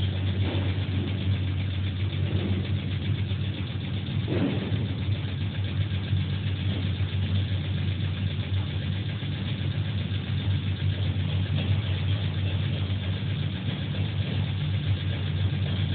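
Steady mechanical drone with a strong low hum, typical of a motor-driven pump pressurising a steel vessel for a hydrostatic (water-pressure) test. A brief extra sound comes about four seconds in.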